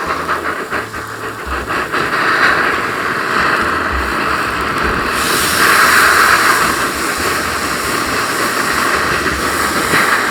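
Ribeye steak sizzling as it sears in a smoking-hot oiled pan, a steady hiss that swells louder about five seconds in.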